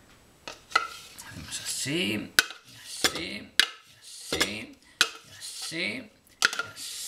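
Metal spoon clinking and scraping against a container and a pastry-lined dish as thick quiche batter is scooped out and spread. There are about half a dozen sharp clinks, spaced unevenly through the scraping.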